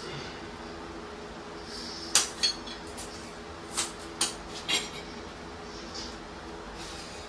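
Metal tools and parts being handled, giving about five sharp metallic clinks and clanks, each with a short ring, bunched between about two and five seconds in.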